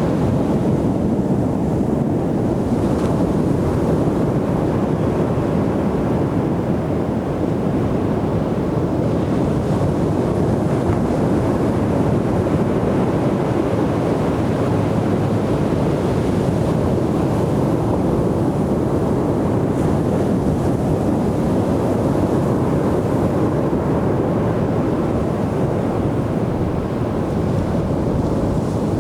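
Ocean surf washing onto a beach as a steady, even roar with no distinct breaks, with wind rumbling on the microphone.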